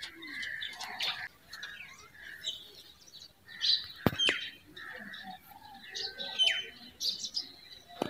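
Birds chirping and twittering, with quick falling chirps about four and six and a half seconds in, and a couple of sharp clicks around four seconds.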